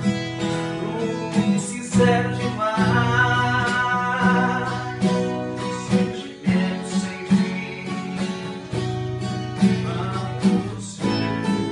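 Two acoustic guitars played together, strummed chords with a steady bass line, and a man singing over them.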